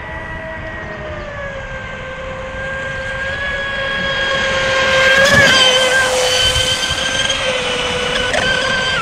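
Whine of the ProBoat SonicWake 36's brushless electric motor as the RC boat runs, its pitch drifting gently with the throttle. It grows louder, with a brief rush of noise about five seconds in.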